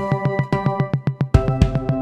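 Instrumental electronic music: held synthesizer chords over a steady programmed drum beat, with the chord changing about a second and a half in.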